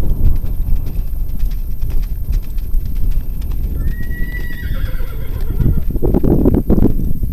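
Hoofbeats of a Quarter Horse loping on arena sand, over a steady low rumble. A horse whinnies once, about four seconds in.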